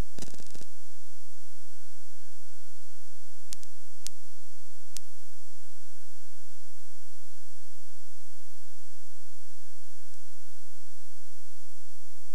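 Steady electrical hum and whine on the patrol-car video recording's audio, with a short burst of crackle just after the start and three sharp clicks between about three and a half and five seconds in.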